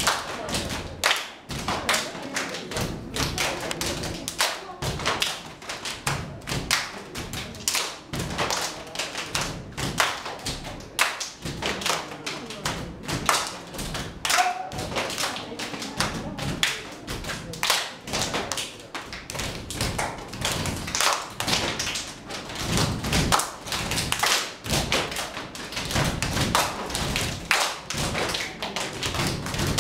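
A group of step dancers stomping and clapping together: a dense, continuous run of percussive thuds and taps.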